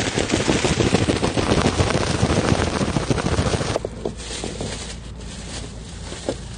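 An air-filled, tied plastic bag of seasoned cucumber being shaken hard to mix it, a dense rapid crinkling that stops abruptly about four seconds in. After that come quieter rustles and a few small clicks as the bag is handled.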